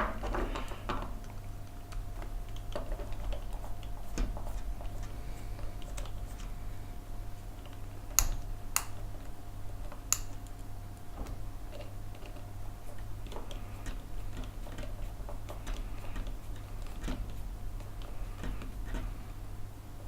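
M3 screws being tightened into the parts of an acrylic 3D printer mount: light scattered clicks and ticks of the tool and parts, with a few sharper clicks around 8 to 10 seconds in. A steady low hum runs underneath.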